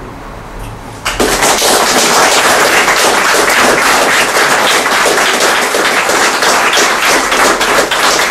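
Audience applause, breaking out suddenly about a second in.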